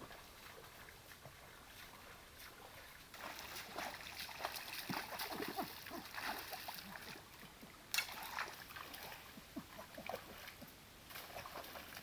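Legs wading through a shallow stream, sloshing and splashing water in an uneven rhythm that starts about three seconds in, with one sharp, loud splash near eight seconds.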